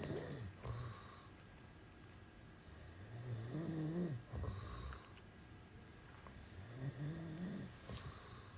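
A man snoring: two long snores that rise and fall in pitch, about four seconds apart, each followed by a breathy exhale.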